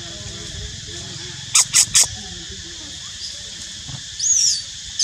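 Three short, sharp, high chirps about a second and a half in, then a high squeal that rises and falls about four seconds in, from an animal, over a steady high drone of insects.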